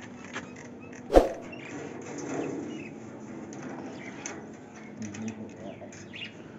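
A single sharp knock about a second in, then light scraping, rattling and clicking as a thin perch stick is pushed through the wire mesh of a wooden bird cage.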